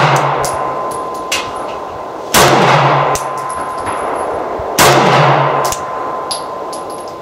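Glock 19 9mm pistol fired in slow, aimed single shots: the tail of one shot fades, then two sharp cracks come about two and a half seconds apart, each with a long, slowly fading echo. Lighter clicks sound between the shots.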